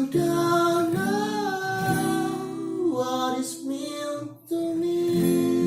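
Music: a song with acoustic guitar and a singing voice holding long notes, with a short break about four and a half seconds in.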